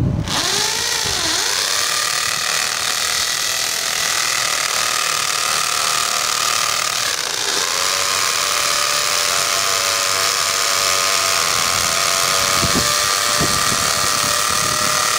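Corded electric drill boring a hole into a concrete wall, running continuously with a steady motor whine. The pitch dips briefly about a second in and again about seven and a half seconds in.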